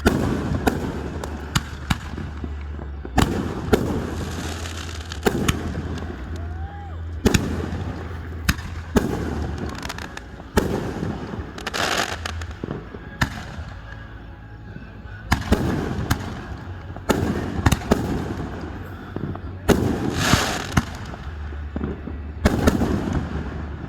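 Fireworks display: a steady run of sharp shell bursts, one after another, some followed by about a second of crackling.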